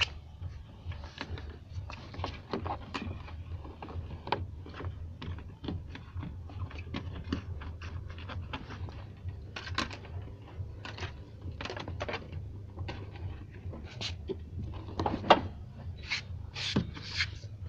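Irregular small clicks and rustles of hands pushing wires under a car's rubber door seal and plastic sill trim, over a steady low hum.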